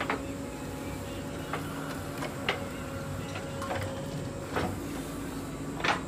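Diesel engines of a tractor and a backhoe loader running steadily, with about six sharp knocks and clanks at irregular intervals, the loudest near the end.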